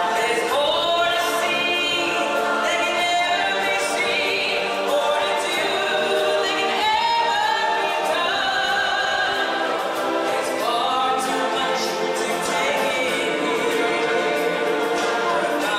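A choir of voices singing a song together with music, sustained and unbroken.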